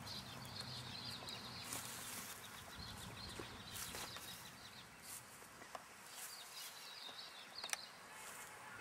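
Faint outdoor ambience: a high, rapid chirping trill comes and goes, with a few soft clicks and a low rumble that fades out about halfway through.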